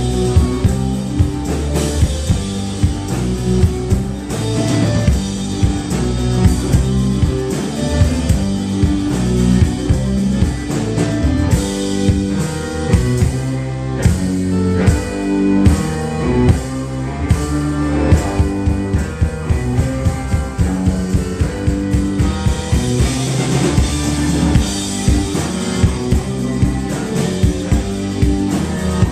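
Live band playing rock music on drum kit, guitars and keyboards, the drums keeping a steady beat.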